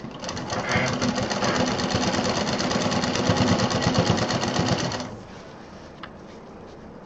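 Domestic sewing machine stitching a zip onto a quilted fabric panel, running at a fast, even stitch rhythm, then stopping about five seconds in.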